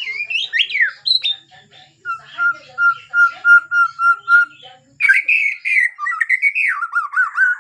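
White-rumped shama singing: varied whistled notes and slurs, then a run of evenly repeated notes on one pitch, about three a second, from about two seconds in, and louder warbling phrases from about five seconds in.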